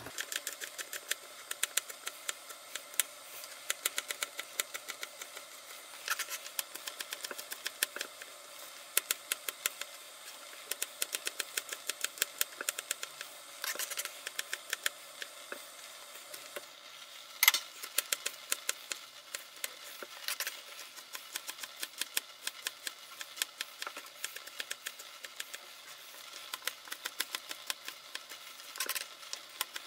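Small pocket-knife blade chopping garlic cloves on a plastic cutting board: quick, uneven clicks several times a second as the blade taps through each slice onto the board, with one louder knock about halfway through.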